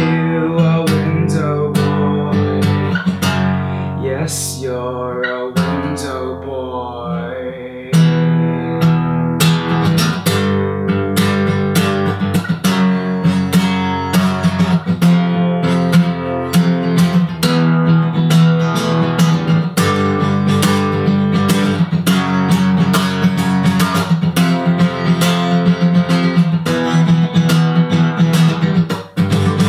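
Instrumental break of a song, led by strummed acoustic guitar. About five seconds in the playing thins and quietens, then it comes back fuller and busier about eight seconds in.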